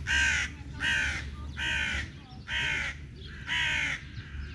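A crow cawing five times in a steady series, about one harsh, drawn-out caw a second, over a low background rumble.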